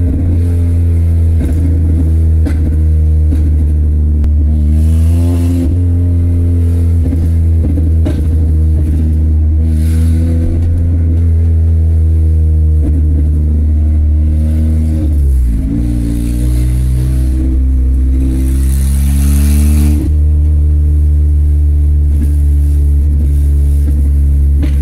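Peugeot 206 engine running with its exhaust straight off the manifold, very loud with a deep drone, heard from inside the cabin while driving slowly. The engine note rises and falls with the throttle, dropping about two-thirds of the way through and then climbing again.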